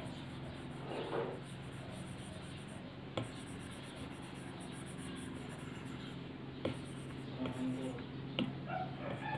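Apple Pencil tip tapping and stroking on an iPad Pro's glass screen during sketching: soft strokes with sharp single taps about three seconds in, past six and a half seconds, and near eight and a half seconds, over a steady low hum.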